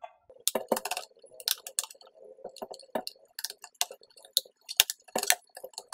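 Irregular sharp plastic clicks and taps as a small flat-head screwdriver pries the HP Pavilion DV6 laptop's keyboard up out of its latches.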